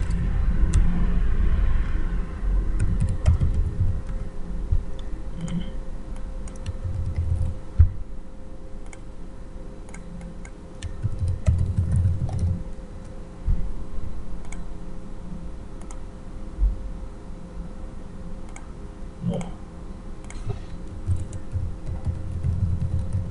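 Typing on a computer keyboard: irregular short runs of key clicks, mixed with dull low thumps.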